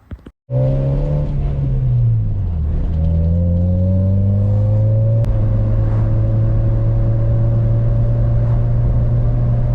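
Honda Civic's four-cylinder engine pulling under acceleration while driving. Its pitch drops about two seconds in, as with an upshift, then climbs slowly and settles into a steady drone.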